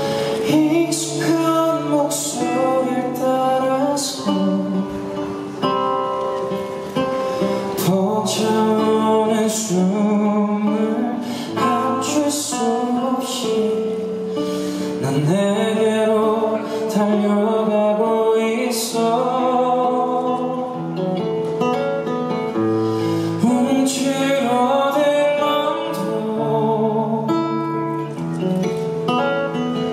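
Male vocalist singing live into a handheld microphone, accompanied by acoustic guitar.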